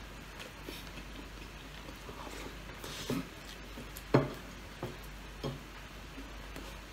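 Mukbang eating sounds: chewing and lip smacks while fingers scoop rice and fried chicken from a plate. A few short sharp taps and smacks, the loudest just after four seconds in, then two more about a second apart.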